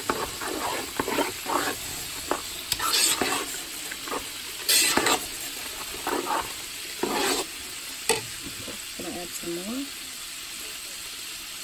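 A spatula stirring thick, creamy penne pasta in a pot, with wet squelching and scraping strokes at an irregular pace that thin out after about seven seconds, while the sauce simmers on the boil.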